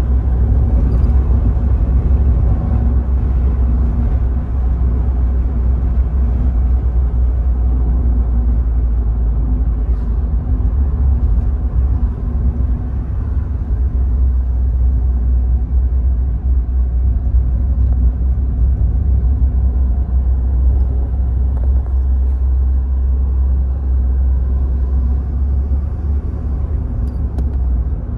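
Steady low rumble of a car in motion heard from inside the cabin: engine and road noise.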